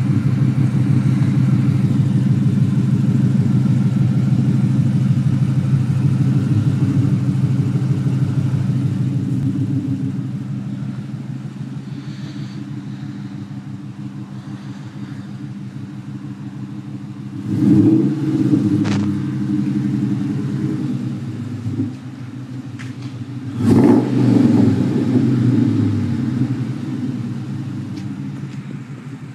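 Vehicle engine with an exhaust leak idling, then revved in two short blips, one a little past halfway and one about six seconds later, each starting with a sharp pop.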